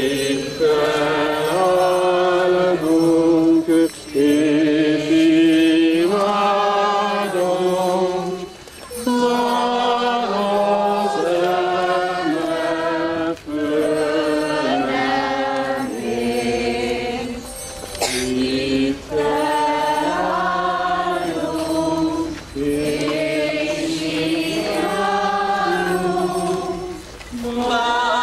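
Procession crowd singing a hymn together, phrase after phrase with brief pauses for breath.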